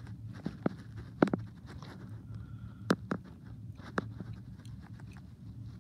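Scattered sharp clicks and light taps of hands and a small tool working wires loose from a toy train's circuit board, about seven in all, over a low steady hum.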